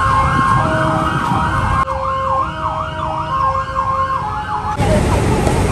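Emergency vehicle siren in city traffic, wailing rapidly up and down at about two sweeps a second. It cuts off near the end, leaving general traffic noise.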